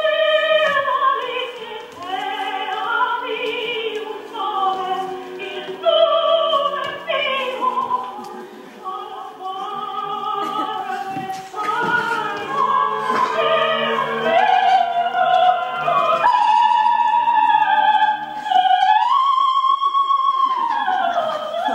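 Operatic singing over classical accompaniment, the voice moving through a melody and then holding one long, high note with vibrato near the end.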